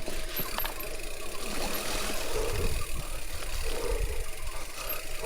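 Riding noise from a chest-mounted action camera on a Giant Fathom hardtail mountain bike: wind buffeting the microphone over a steady rumble of tyres and a light rattle.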